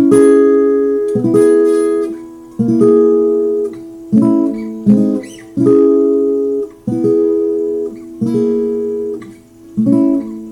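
Acoustic guitar playing the song's outro progression: about nine chords strummed one at a time, each left to ring and fade, as the line walks down on the D string.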